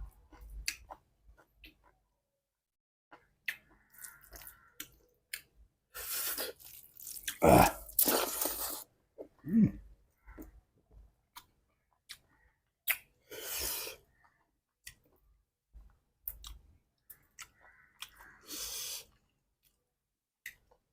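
A person chewing food close to the microphone, with wet mouth clicks and a few louder noisy bursts of eating.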